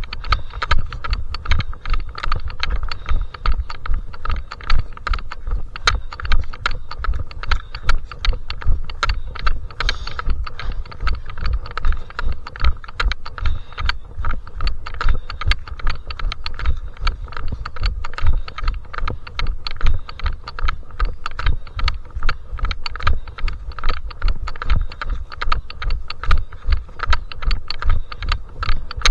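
Footsteps of a trail runner walking on a mountain path, a steady stream of thumps and clicks about once or twice a second, heard close up from a camera carried on the body.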